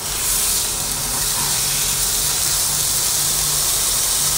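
Ribeye steak sizzling in hot olive oil in a nonstick frying pan, a steady high hiss. The sizzle swells just after the start as the freshly flipped raw side meets the pan.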